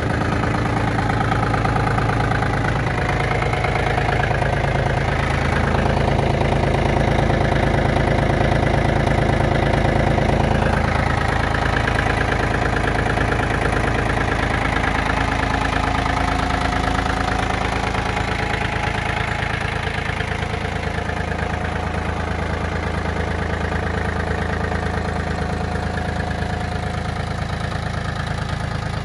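Yanmar F195 compact tractor's diesel engine idling steadily, its tone shifting slightly about eleven seconds in.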